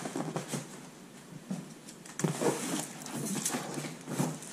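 Large cardboard box being shifted and opened by hand: cardboard rustling, scraping and knocking in irregular bursts, loudest about two seconds in and again near the end.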